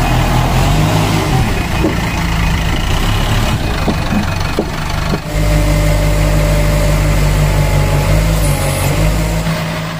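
Diesel engines of Bobcat construction machines, a skid-steer loader among them, running steadily as they manoeuvre: a low engine drone with a short dip and change about five seconds in.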